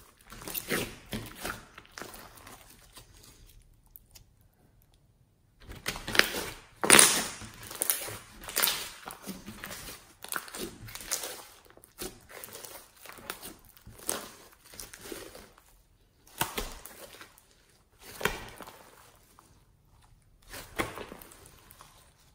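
Hands squeezing, stretching and folding blue slime mixed with floam beads: a wet squelching in irregular bursts a second or so long, with a quiet pause about four to five seconds in.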